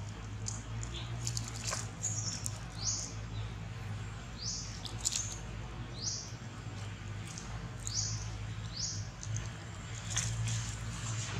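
A bird calling over and over: short, high chirps that drop in pitch, about one a second, over a low steady hum.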